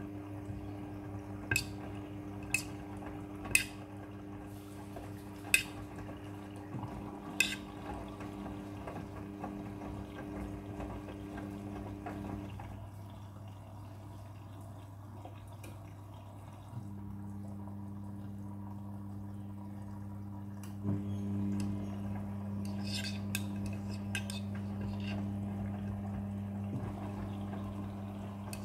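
Front-loading washing machine in its wash cycle: the drum motor hums, goes quiet for a few seconds about halfway and starts again at a different pitch, over water sloshing in the drum, with a few sharp clicks.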